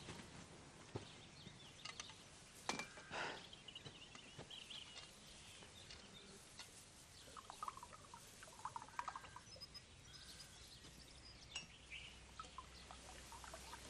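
Quiet garden ambience with scattered faint bird chirps and a few light clinks of china coffee cups.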